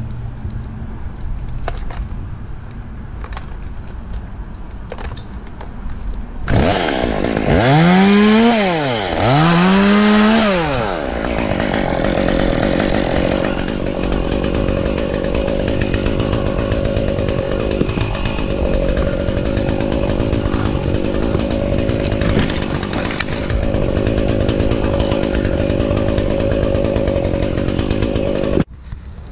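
Gas chainsaw revving up and back down twice, then running on at a steady high speed before cutting off abruptly near the end.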